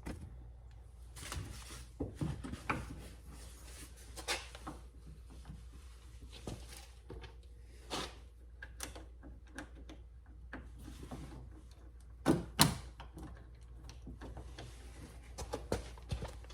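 Scattered clicks and knocks of a car's outer door handle and its fasteners being fitted into the door by hand, with two louder knocks about twelve seconds in.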